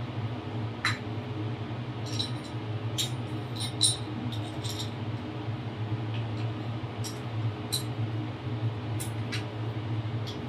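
Scattered light metallic clicks and clinks, a dozen or so at irregular intervals, as a steel pipe clamp is handled and fitted onto a well pipe. A steady low hum runs underneath.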